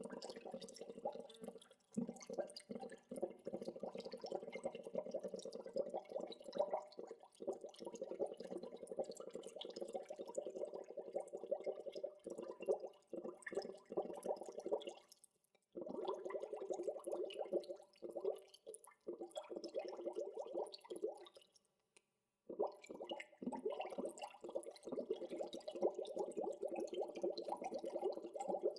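Water bubbling: a dense, continuous stream of small bubbles, breaking off briefly twice, once about halfway through and again a few seconds later.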